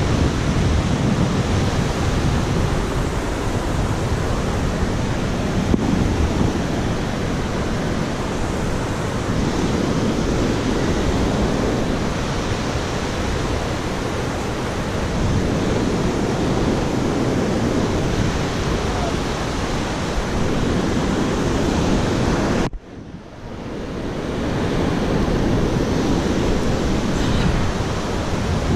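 Wind buffeting the GoPro's microphone: a steady, wavering rumble that dips abruptly about three quarters of the way through, then builds back up.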